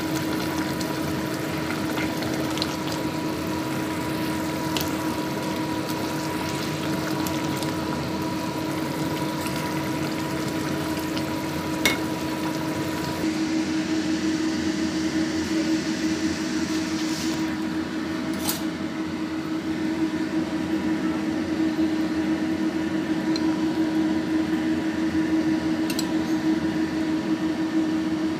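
Stew simmering in a steel pot: a steady bubbling hiss over a constant hum, with a faint click or two. About halfway through the hiss drops away, leaving the hum and a few light clinks.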